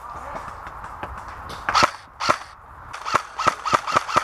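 Airsoft guns firing: two single shots about two seconds in, then a quick run of shots, about five a second, through the last second and a half.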